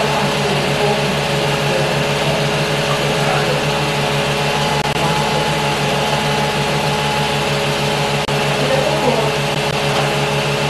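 Home-movie film projector running: a steady whirring hum with a fast, even flutter from the film transport. It dips briefly about eight seconds in.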